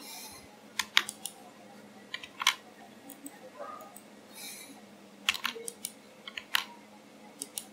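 Computer keyboard keystrokes and mouse clicks, short sharp clicks coming singly and in small clusters with pauses between.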